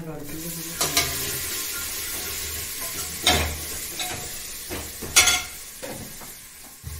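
Onions and spices frying in oil in a metal pressure cooker, sizzling with a steady hiss while a steel spoon stirs them. The spoon scrapes and clinks sharply against the pot a few times. The sizzle thins out in the second half.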